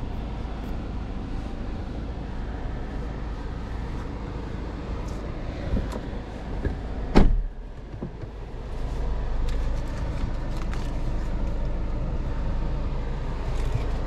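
Audi A3 35 TFSI's 1.5-litre turbo four-cylinder idling with a steady low hum, and the driver's door shut with one sharp thud about seven seconds in, after which the outside noise briefly drops.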